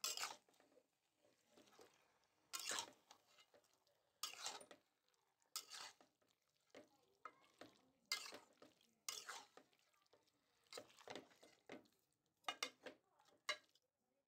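Metal spatula scraping and stirring marinated chicken pieces around a wok, in a dozen or so short, irregular strokes with quiet gaps between.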